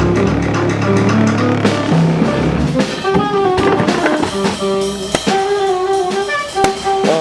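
Instrumental jazz-style music with drums and plucked guitar. About three seconds in, a melody line of held, repeated notes comes in.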